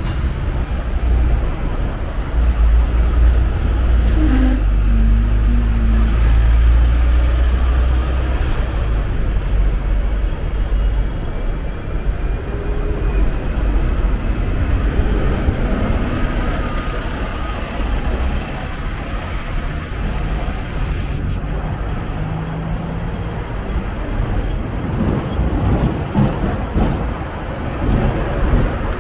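Hong Kong double-decker tram running through city streets, heard on board: a steady rumble of its motors and wheels on the rails, mixed with surrounding road traffic. The deep rumble is heaviest in the first third, then eases a little.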